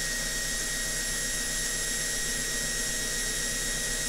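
Ingco 20V 66 Nm cordless impact drill running free at full trigger in second (high) gear, rated 2,000 RPM: a steady motor whine at constant speed.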